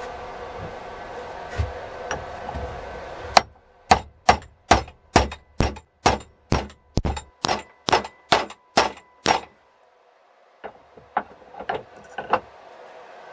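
Hammer striking the steel head of a vintage Brades Criterion axe held in a vise: about fifteen sharp, ringing metal blows at two or three a second, then a short pause and a few lighter taps. Before the blows start there is a steady hum with a few faint knocks.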